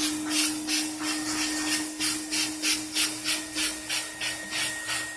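Upholstery shampoo brush attachment scrubbed quickly back and forth over fabric, about three rasping strokes a second, over the steady hum of the Roboclean vacuum's running motor.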